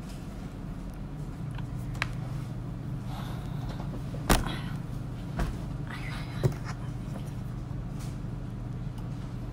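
A few small knocks and rustles of someone moving at a desk, the loudest knock about four seconds in, over a steady low room hum.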